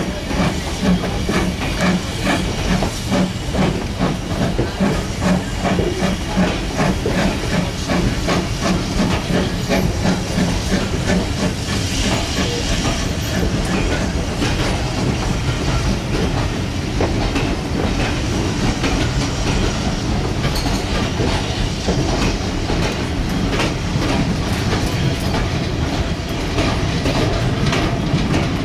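Steam train pulling away: the locomotive's exhaust and the coaches' wheels clicking over the rail joints in a rhythm, with a steam hiss. The pulses are strongest in the first ten seconds or so, then even out.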